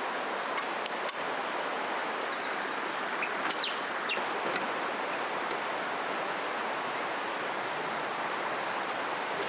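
River water flowing in a steady rush, with a few short bird chirps and sharp clicks scattered over it.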